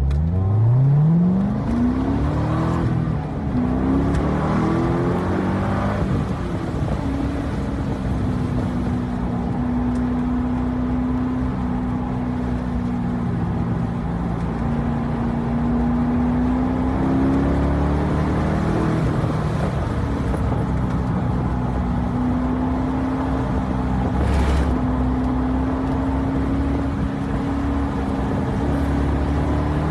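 2012 Corvette Grand Sport's 6.2-litre LS3 V8 under hard acceleration on a racetrack: the revs climb steeply at the start, with two upshifts in the first six seconds, then hold high at a fairly steady pitch with small rises and dips.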